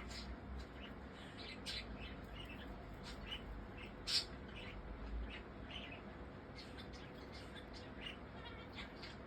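Budgerigar giving short chirps and clicks at irregular intervals, with one louder chirp about four seconds in.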